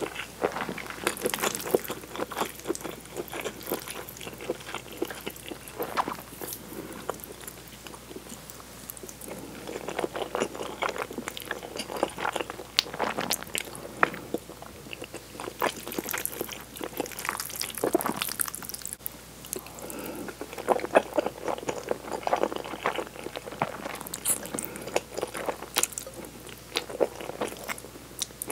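Close-miked mouth sounds of spaghetti in tomato cream sauce being sucked in and chewed: many short wet clicks and smacks coming in clusters.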